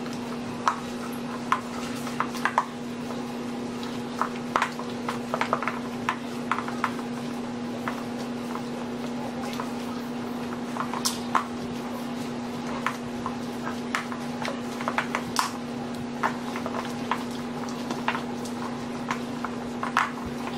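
A plastic spatula knocking and scraping against a bowl as a mixture is stirred by hand, in irregular clicks, over a steady low hum.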